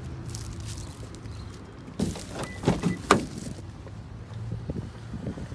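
A quick run of knocks and clatter about two to three seconds in, loudest near the end of the run, over a low steady hum.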